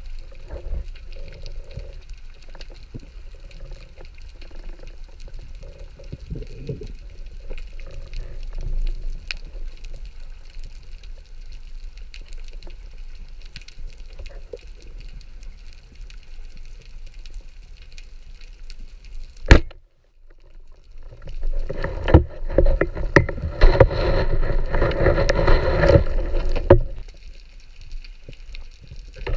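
Muffled underwater noise picked up through a camera housing: a low rumble with scattered faint clicks, and one sharp click. For about five seconds near the end a louder steady droning hum with a fixed pitch rises over it, then fades.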